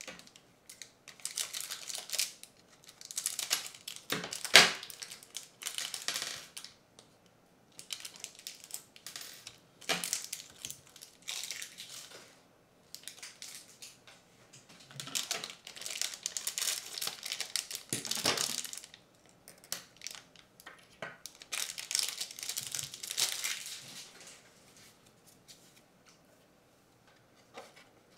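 Plastic packaging bags crinkling and tearing as small kit parts are unwrapped, in irregular bursts with short pauses and a sharp click about four and a half seconds in.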